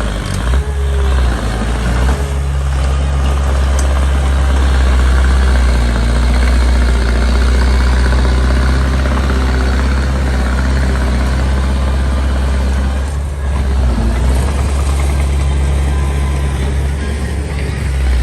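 A small bulldozer's diesel engine running steadily and loud, with brief dips in level a few times.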